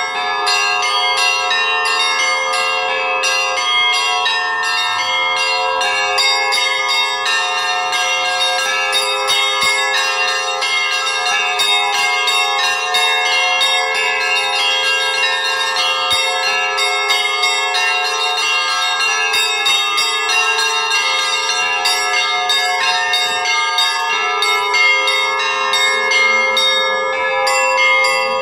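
Russian Orthodox monastery bells in a traditional zvon: a continuous peal of many bells, with quick overlapping strikes of the higher bells over a steady ringing tone held by the lower ones.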